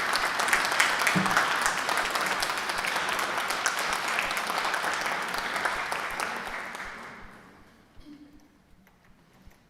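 Audience applauding, dying away about seven seconds in, followed by a few faint knocks.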